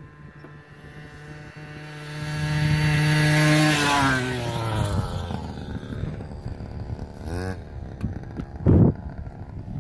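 Small 49cc two-stroke pocket ATV engine buzzing at high revs as it approaches and passes close by, getting louder and then dropping in pitch as it goes past about four seconds in. A short loud burst follows near the end.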